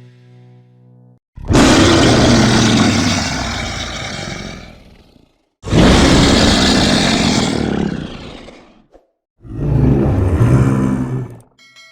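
Three dinosaur roar sound effects in a row, each a long rough roar that fades away, the first two about three to four seconds long and the third shorter.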